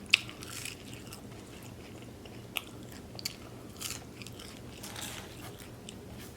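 Close-miked eating: a sharp bite just after the start, then scattered chewing sounds and wet mouth clicks, with a couple of louder clicks around the middle.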